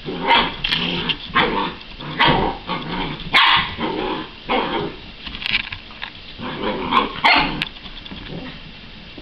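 Small dog barking and growling in short bursts, again and again, while it attacks a moving mop in play.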